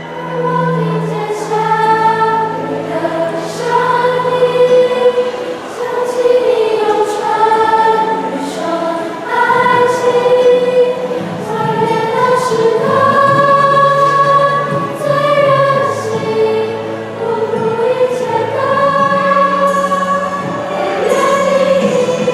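A choir singing a slow song in long held notes, over a steady low accompaniment.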